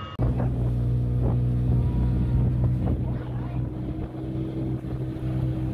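Motorboat engine running steadily at cruising speed.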